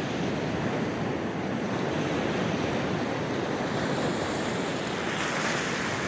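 Sea surf washing and breaking along the shore, with wind on the microphone. A wave surges slightly louder and hissier about five seconds in.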